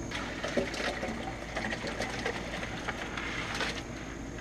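Live crawfish and muddy water shifting in a plastic bucket as it is tipped, with many small scattered clicks of shells against the plastic and water sloshing.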